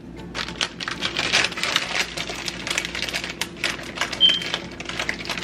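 Dense, irregular clicking and crackling as slices of pepperoni are handled and laid on a hoagie roll, with a brief high squeak about four seconds in.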